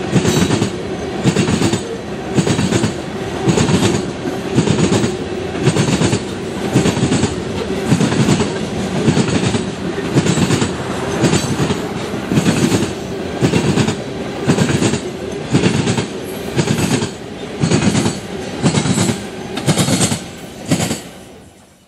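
Freight cars of a CSX train rolling past, their wheels clacking over rail joints in a steady rhythm about once a second over continuous rolling noise, fading away near the end.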